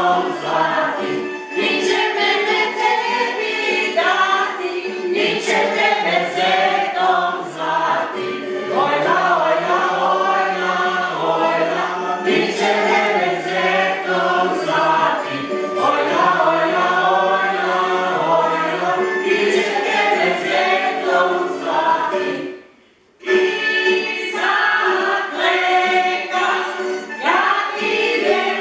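A group of voices singing a folk song in chorus, without instruments. The singing breaks off briefly about three-quarters of the way through, then carries on.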